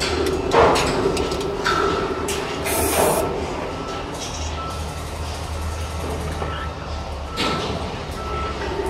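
A vehicle's reversing alarm beeps steadily, a little faster than once a second, over a low engine rumble. A few short hissing bursts cut in, the loudest about three seconds in.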